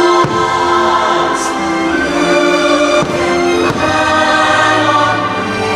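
Choir singing with orchestra, the music of a Christmas fireworks show, with a few faint firework bangs under it.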